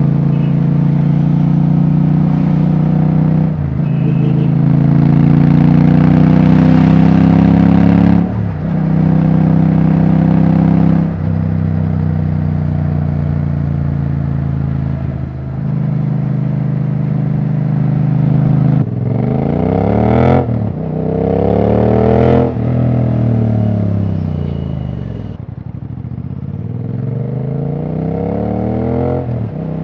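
Royal Enfield Bear 650's 648 cc parallel-twin engine running open without a silencer while riding. It pulls up in pitch through the gears, with a short drop at each of four shifts, then is revved up and down several times in quick sweeps.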